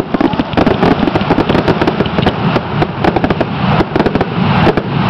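Fireworks grand finale: a dense, unbroken barrage of rapid bangs and crackles, many shells bursting close together.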